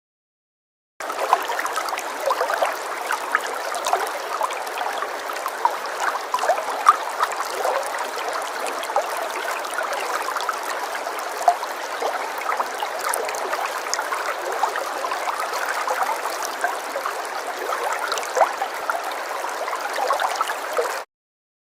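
Falling water splashing and trickling steadily, with many small splashes of drops. It comes in after about a second of silence and cuts off suddenly near the end.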